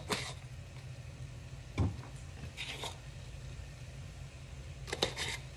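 Small plastic spice jar being handled: light clicks and a knock as its lid is twisted off, a short rustling shake about two and a half seconds in, and a few sharp clicks near the end, over a steady low hum.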